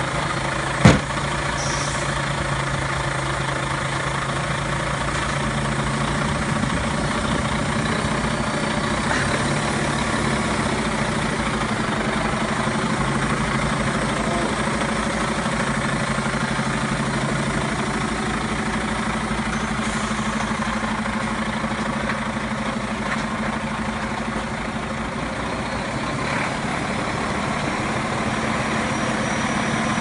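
IVECO Stralis Cursor 13 inline-six diesel idling steadily, with one sharp knock about a second in. A faint high whistle comes in near the end.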